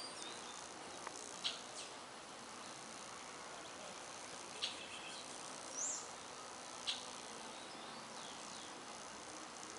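Forest ambience: a steady buzz of bees working the flowers of fruiting trees under a high insect drone. A handful of short, sharp bird calls break through, and one call slides down in pitch.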